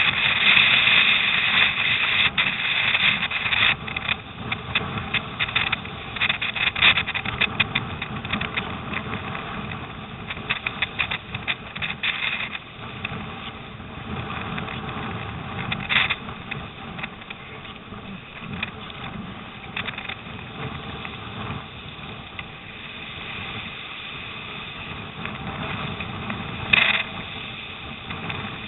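Water rushing and splashing off a surfski's bow as it runs through wind-driven chop, with storm wind buffeting and crackling on the microphone, heaviest in the first half. A single sharp splash or knock near the end.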